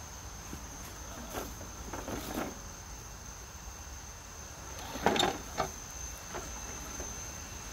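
Scale RC rock crawler truck with a Toyota pickup body crawling over creek-bed rock: a few short scrapes and crunches of its tyres on stone, the loudest about five seconds in as it comes close.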